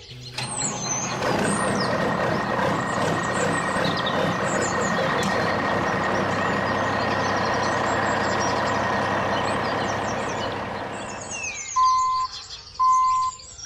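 Toy radio-controlled dump truck's small electric motor and plastic gears running with a steady whine, dying away about eleven seconds in. Then comes a series of short electronic beeps, about one a second, near the end.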